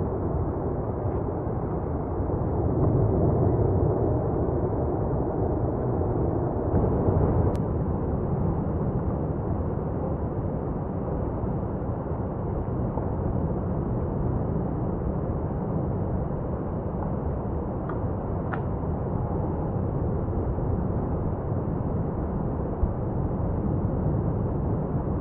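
Lava fountain from Mount Etna's South-East crater during a paroxysm: a continuous low rumble of gas and lava jetting, swelling a little a few seconds in, with a few brief cracks.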